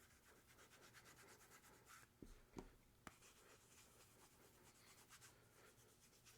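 Faint rubbing of fingers working conditioner into a leather knife slip, with three soft knocks about two to three seconds in.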